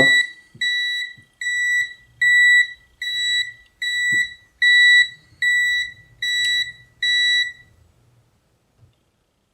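Tilswall FY8233X multimeter's non-contact voltage detector beeping: a steady run of short high beeps, a little over one a second, signalling that it senses voltage on the live wire. The beeping stops about eight seconds in.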